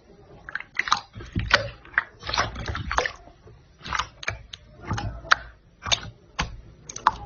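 Clear slime being squeezed and pressed by hand in a bowl: an irregular run of wet squelches and sharp clicking pops, about one or two a second.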